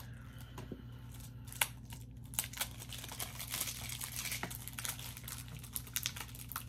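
Packaging crinkling while Blu-ray cases are handled, with scattered light clicks. The crinkling grows denser about two seconds in.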